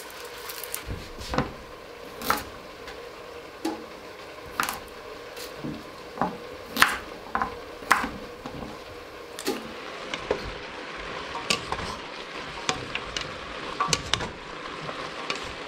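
Chef's knife chopping carrots on a wooden cutting board: irregular sharp knocks about once a second. About ten seconds in, a wooden spoon stirs diced carrots, celery and onions sautéing in a steel pot, with scrapes and taps against the pot and a light sizzle.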